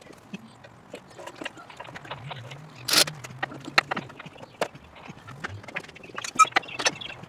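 Scattered knocks and clicks of hand tools and parts as someone works by hand around the hydraulic gear pump and lines at the rear of a Case 1845C skid steer; the sharpest knock comes about three seconds in.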